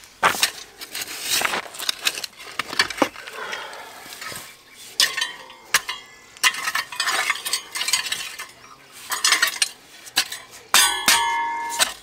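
An old steel garden fork, its tines sharpened to points, being driven into and turning over stony soil: irregular strokes of tines scraping and clinking against stones and grit, with a clink that rings briefly near the end.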